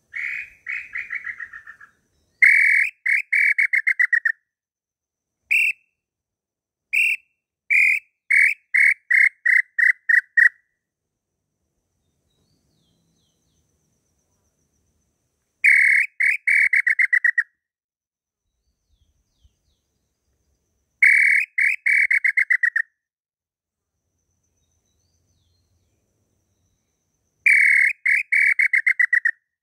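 Inhambu pé-roxo tinamou call being blown on a throat-style hunting call (pio garganta): short runs of rapid whistled notes that fall slightly in pitch. There are seven runs and a couple of single notes, with pauses of several seconds between.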